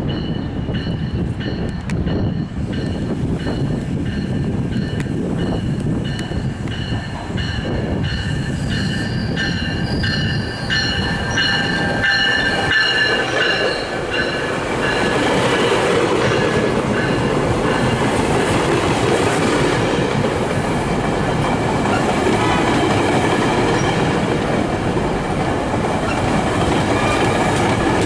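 GO Transit bilevel commuter train pulling into the station. High-pitched squealing tones sound over its running noise as it approaches. About halfway through these give way to a louder, steady rumble of the bilevel coaches rolling past.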